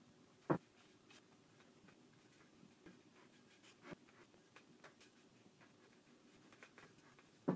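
Fingers pressing and rubbing the glued rim of a new foam surround onto a Bowers & Wilkins DM602/DM603 S2 woofer's basket: faint scratchy handling noise with scattered small clicks, and two sharp knocks, about half a second in and at the very end.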